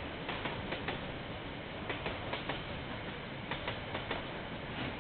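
Train wagons rolling past on the rails: a steady rumble with frequent irregular clicks of the wheels over rail joints, heard through a security camera's microphone.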